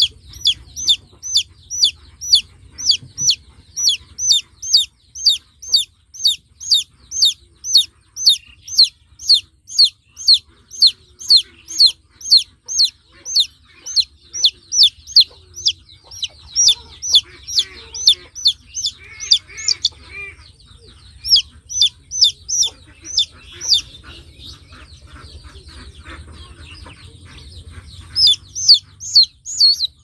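Baby chick peeping loudly and insistently, about two sharp falling peeps a second: the distress peeping of a chick held in the hand. The peeping stops for a few seconds near the end, then starts again.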